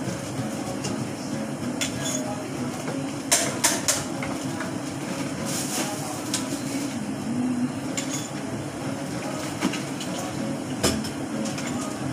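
Cups, dishes and metal utensils clinking and clattering as they are handled at a coffee counter, with a few sharper knocks, the loudest about three seconds in and near the end, over a steady background hum.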